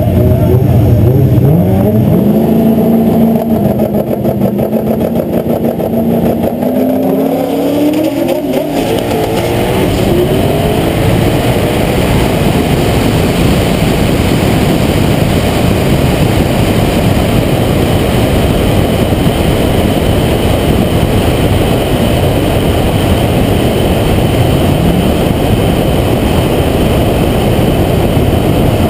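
A car engine accelerating hard on a drag-strip launch, its pitch climbing for the first eight seconds or so. After that, steady rushing wind noise on the hood-mounted microphone covers most of the engine as the car runs on at speed.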